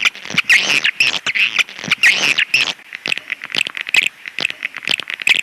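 Swiftlet lure-call recording of the kind played from swiftlet houses to draw in nesting birds: a dense chatter of sharp clicks and twittering chirps, repeating in quick bursts about twice a second.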